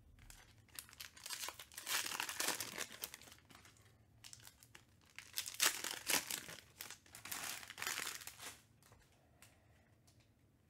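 Foil wrapper of a Panini Mosaic basketball card pack being torn open and crinkled by hand. It comes in two loud spells of crackling, one about a second in and another from about five and a half seconds, then dies down to faint rustles near the end.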